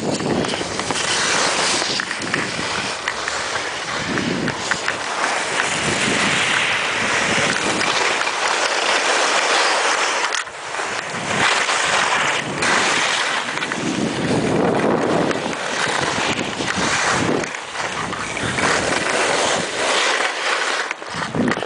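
Wind rushing over the microphone of a camera carried by a moving skier, mixed with the hiss and scrape of skis on packed snow, rising and falling in surges.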